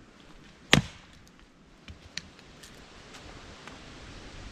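A hatchet splits a piece of kindling on a wooden chopping block: one sharp, loud chop about three quarters of a second in, followed by several lighter clicks and knocks of wood. A steady rushing noise grows near the end.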